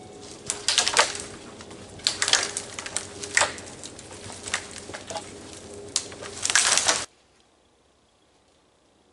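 Crunching and cracking in irregular bursts: footsteps in deep snow and dead branches snapping as a long dead pole is moved through the brush. It cuts off suddenly about seven seconds in, leaving near silence.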